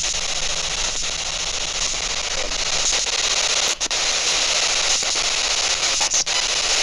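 SBox spirit box sweeping through radio frequencies, giving a steady loud hiss of static broken by a few brief dropouts as it jumps between stations.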